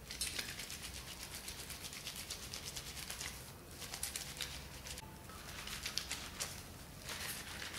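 Wet cotton cloth lathered with dish gel being rubbed and squeezed between hands over a bowl of soapy water: a rapid run of wet squelches and crackling suds.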